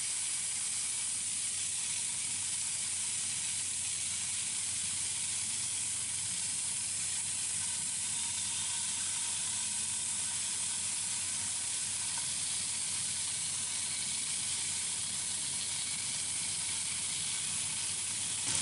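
Skewered meat seekh kebabs sizzling in a lightly oiled frying pan over a medium gas flame, a steady even hiss.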